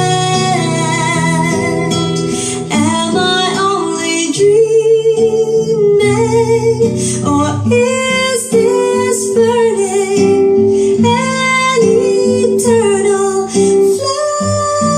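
A song with acoustic guitar and a female voice singing, played back loud through the speaker boxes as an amplifier sound-quality test, driven by the Ace LX20 power amplifier.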